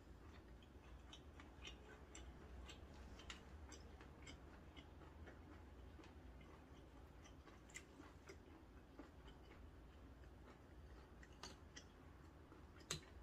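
Quiet close-up chewing of cold noodles and seafood pancake: scattered small mouth clicks throughout, with one sharper click near the end.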